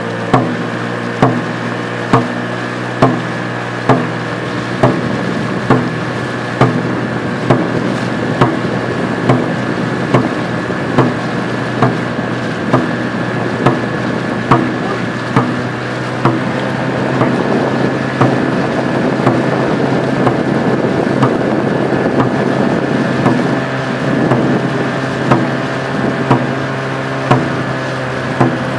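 Dragon boat drum struck steadily, a little under once a second, setting the paddlers' stroke, over the steady hum of a motorboat engine. For several seconds past the middle a louder rushing noise partly buries the beats.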